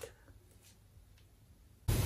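Faint handling clicks and rustle as a laptop is held and its lid opened. Near the end a sudden loud noise cuts in.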